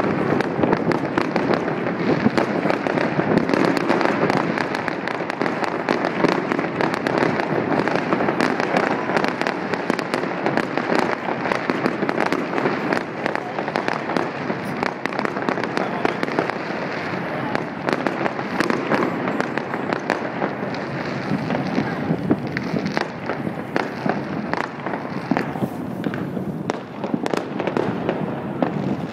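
Fireworks bursting and crackling, many sharp pops in quick succession, over a steady murmur of voices.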